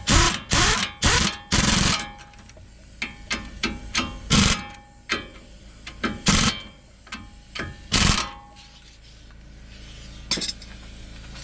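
Hand-tool work on a pickup truck's front hub assembly: a series of short, sharp metallic bangs, four in quick succession at the start, then single ones every second or two.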